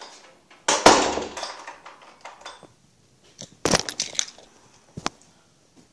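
Handling noise from a covered phone microphone: two bursts of rustling and rubbing, the first the loudest, then a single sharp click about five seconds in.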